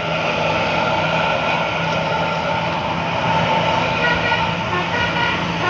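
Bus's multi-tone basuri telolet air horn sounding several held notes at once over the engine, with the notes shifting into shorter ones after about four seconds.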